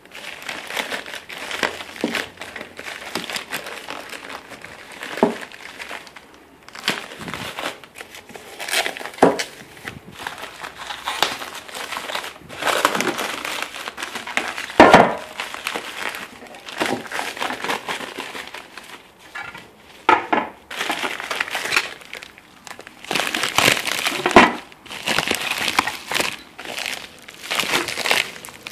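Packaging crinkling and rustling in irregular bursts, with sharp crackles, as parts of a car cold air intake kit are handled and pulled out of their wrapping.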